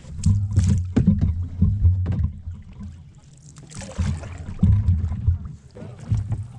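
Canoe being paddled on a river: repeated knocks of the paddles against the hull and water sloshing, over bursts of low rumble.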